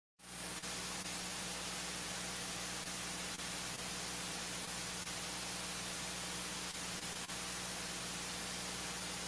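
Steady electronic hiss with a low hum, switching on abruptly out of dead silence, with a few faint clicks: the noise of an open audio line or microphone feed with no sound on it.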